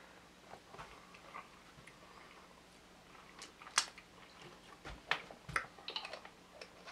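Faint mouth sounds of a person tasting a spoonful of hot sauce. Then, from about halfway in, a scattering of sharp clicks and taps as a small glass sauce bottle and a wooden spoon are handled.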